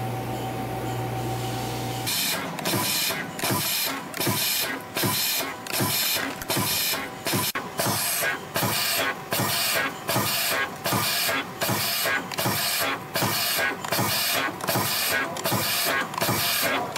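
CNC retaining ring forming machine running its production cycle, feeding and bending wire into rings and cutting them off in a fast, even mechanical rhythm, each cycle a little over half a second long. It starts about two seconds in, after a steady hum.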